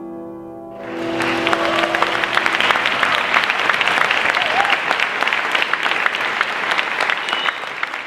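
The last held chord of the tango music rings out and dies away, while about a second in an audience breaks into loud, steady applause, which fades away near the end.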